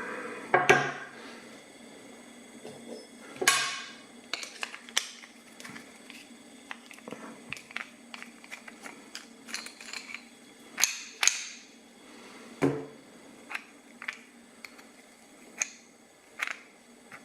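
Small metal tools working on an ABUS Extreme 83WB/53 padlock as it is taken apart: irregular small metal clicks and scrapes, with a few louder knocks.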